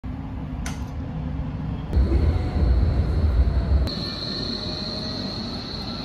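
Electric commuter train running, heard from inside a carriage: a steady low rumble with a thin high whine. The rumble grows louder abruptly at about two seconds and changes again just before four seconds.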